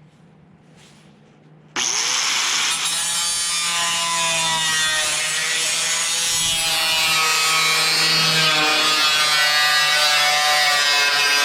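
A power tool starts about two seconds in and cuts through a ribbed sheet-metal panel, a steady loud cutting noise with shifting, ringing tones as the metal sings under the blade.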